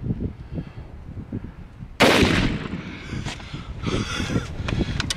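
A single shot from a muzzle-braked Savage Axis 2 Precision rifle in .270 Winchester about two seconds in. It is a sudden loud crack with a long echoing tail that fades over about a second.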